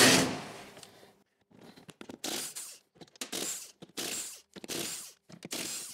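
Cordless impact wrench run in several short bursts, spinning wheel nuts off a steel car wheel.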